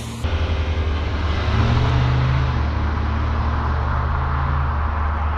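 Car engine and road noise while driving: a steady low drone with a fast pulse and a steady hiss above it, starting abruptly about a quarter second in.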